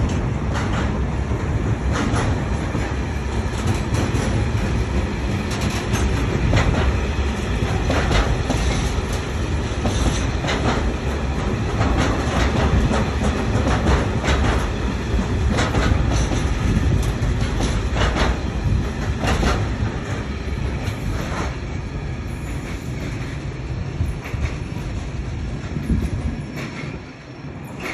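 Freight train wagons rolling past on the viaduct: a steady rumble with repeated sharp clickety-clack knocks from wheels crossing rail joints. The sound fades in the last couple of seconds as the end of the train goes by.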